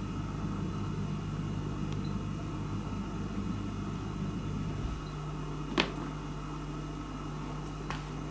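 Steady low hum of a household machine in a small room, which thins out about halfway through. A sharp tap comes a little past halfway, and a fainter tap follows about two seconds later.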